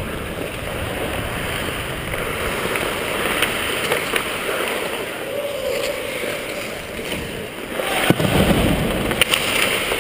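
Hockey skate blades scraping and gliding on ice, heard close through a helmet-mounted camera, as a steady rush that grows louder about eight seconds in. A few sharp clicks come near the end.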